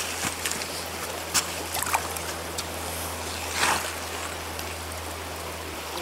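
Small rocky stream running steadily, with a few short splashes and knocks near the water's edge, the loudest a little past halfway through.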